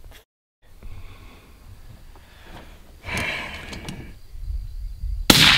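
A single suppressed rifle shot near the end, sharp and loud with a ringing tail. It comes after a few seconds of faint outdoor background and a brief rustle about three seconds in.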